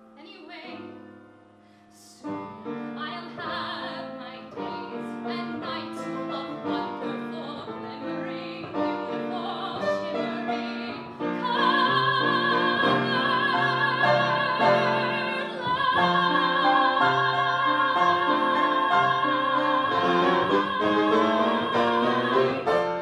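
A woman singing a show tune with piano accompaniment: soft phrases, then the piano comes in with fuller chords, and about halfway through she holds one long, loud high note with vibrato over the piano until both stop together near the end.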